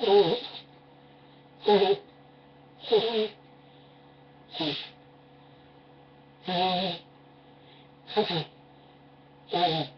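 A person blowing their nose hard, seven short honking blasts about a second and a half apart, each a rush of air with a wavering honk in it.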